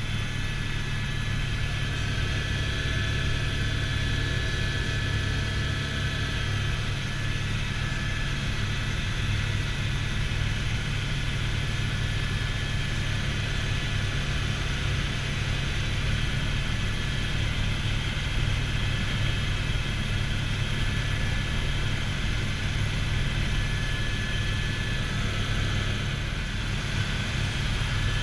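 Helicopter in flight, heard from inside the cabin: a steady low drone of rotor and engine, with a thin steady high tone over it.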